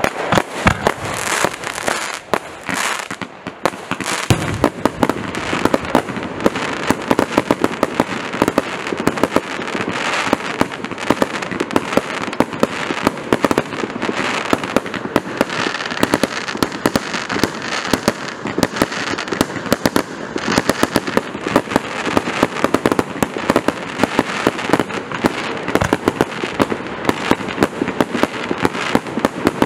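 Prestigious Pyrotechnics 'Pyroclastic Storm' compound firework cake firing: a loud, dense barrage of sharp bangs, many a second, that starts abruptly and keeps going without a break.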